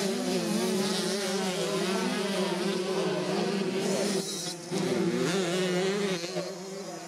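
Two-stroke engines of 65cc small-wheel minicross motorcycles racing, the pitch rising and falling as the riders rev on and off the throttle through the mud. The sound jumps abruptly about four and six seconds in.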